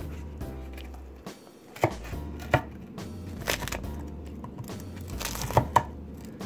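A chef's knife cutting through a crisp pita-bread pizza on a wooden end-grain cutting board: the crust crunches and the blade knocks sharply on the board about five times, loudest twice near the end.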